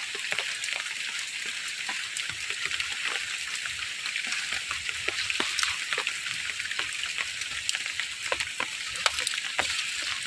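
Steady watery hiss with many small splashes and clicks scattered through it.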